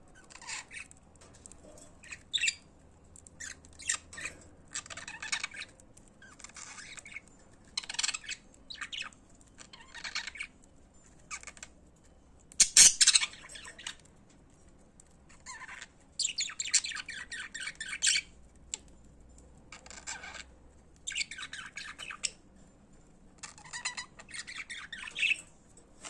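Budgerigars chattering and warbling in short separate bursts of high, rapid calls with brief gaps between, the loudest burst about halfway through.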